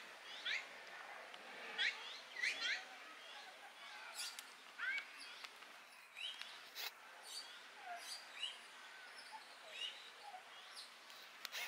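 Irregular short, high chirping calls, about one a second, some sweeping up and some down in pitch, over a quiet steady hiss.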